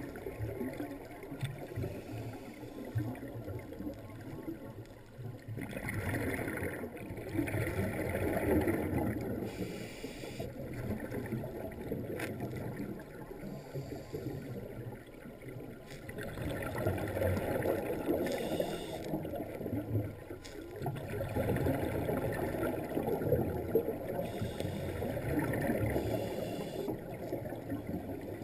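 Muffled underwater sound of scuba divers breathing: rumbling swells of exhaled regulator bubbles every few seconds, with softer hissing between them.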